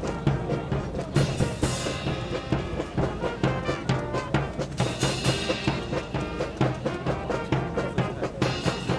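Music with a steady, driving drum beat.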